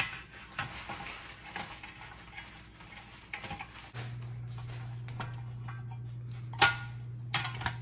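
Light metallic clinks and rattles as a telescope tripod's metal accessory tray is handled and pressed onto the leg spreader, with two sharper clicks near the end. A steady low hum comes in about halfway through.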